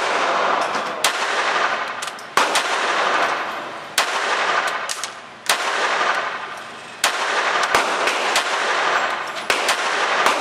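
Sig Sauer P220 .45 ACP pistol firing single shots, the loudest about one every second and a half, each followed by a reverberant tail in the enclosed indoor range.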